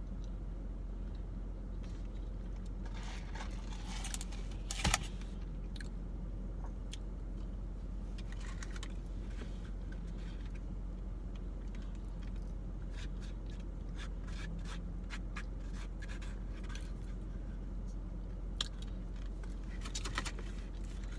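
Eating sounds: a fork scraping and clicking against a food container, with scattered light clicks and one sharper knock about five seconds in, over a steady low hum.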